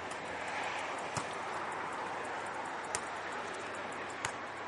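A volleyball struck by players' hands and arms during a beach volleyball rally: three sharp slaps, roughly one to two seconds apart. They sound over a steady background hiss.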